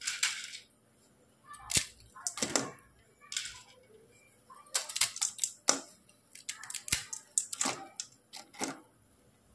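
Dry Maggi instant noodle cakes being snapped apart by hand and dropped into warm water in a metal pan: a series of irregular sharp cracks and crunches with short pauses between.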